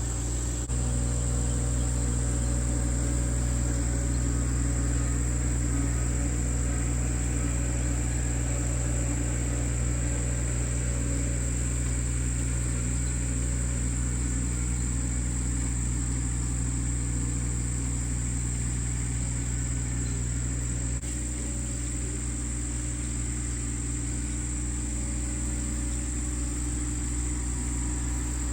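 Engine of a vehicle running steadily at a constant speed, a low, even hum; it dips slightly in level about two-thirds of the way through.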